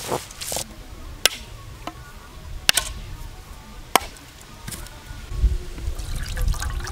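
A husked coconut being struck to crack it open: three sharp knocks about a second and a half apart. A low rumble follows near the end.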